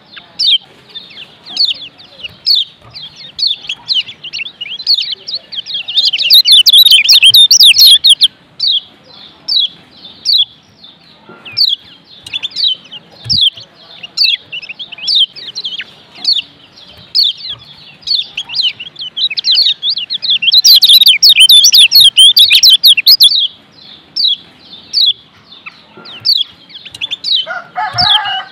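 Lombok yellow white-eye (kecial kuning) calling in quick, high chirps, breaking twice into loud, dense twittering for about two seconds: once around a quarter of the way in, and again past the middle. A rooster starts to crow right at the end.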